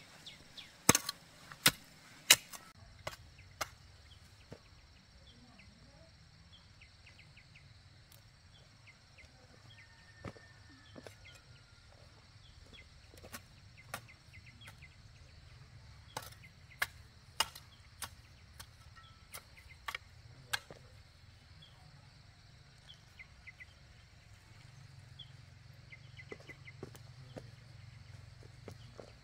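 Sharp knocks and chops at irregular intervals, coming in small clusters, with faint short high chirps in between.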